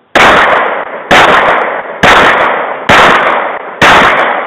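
Handgun gunshots: five shots at a steady pace of about one a second, each echoing and dying away before the next.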